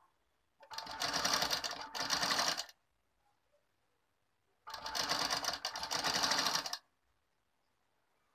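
Sewing machine running in two spells of about two seconds each, with a pause of about two seconds between them, as it stitches lace trim onto fabric.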